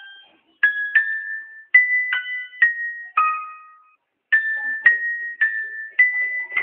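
Background music: a simple keyboard melody of single struck notes that ring and fade, about two a second, with a short pause midway.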